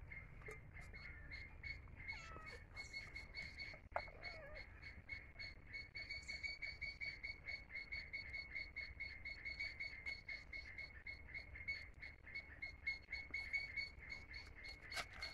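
A calling animal chirping steadily at one high pitch, pulsing several times a second without a break. A single sharp knock sounds about four seconds in.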